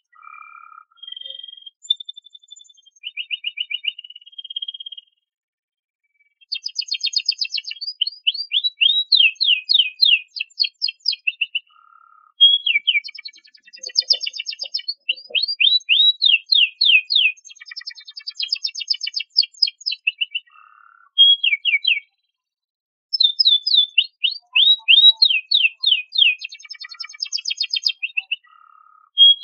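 Canary singing: quieter short notes for the first few seconds, then long phrases of rapid repeated down-sweeping notes, each phrase a few seconds long with short pauses between.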